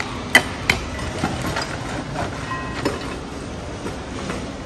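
Long-handled metal shovel raking burning charcoal in a steel grill trough: sharp clinks of charcoal lumps knocking together and against the metal, the two loudest in the first second, over a steady low background rumble.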